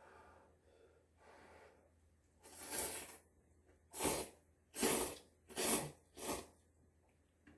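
A person slurping spicy instant ramen noodles: two soft slurps, then five loud, quick slurps in a row.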